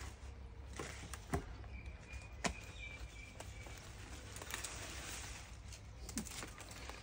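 Beetroot being pulled up by hand: quiet rustling of the leafy tops and a handful of scattered sharp snaps and clicks over faint background noise.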